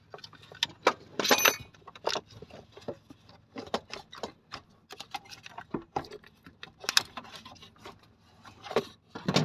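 Irregular metallic clicks and knocks as a loosened car alternator is gripped and shifted by hand in its mounting, with a short ringing jingle of metal about a second and a half in.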